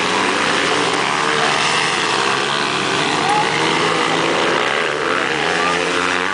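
Dirt bike engine revving hard on a climb, its pitch wavering and rising about five seconds in.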